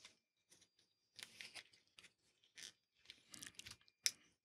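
Faint rustles and light clicks of a handheld radio's whip antenna being handled, with one sharper click about four seconds in.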